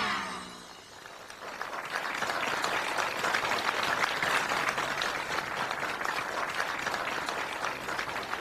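A television studio audience applauding steadily, taking over about a second in as the show's theme music fades out.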